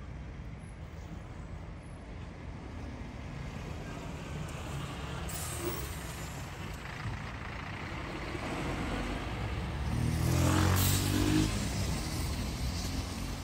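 Street traffic led by a coach bus's diesel engine running close by, growing louder toward the end, with a brief hiss at its loudest point.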